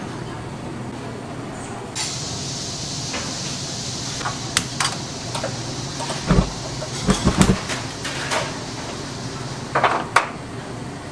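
Kitchen work sounds: a steady hiss comes on about two seconds in. In the second half dishes and utensils click and clatter, with a few dull knocks.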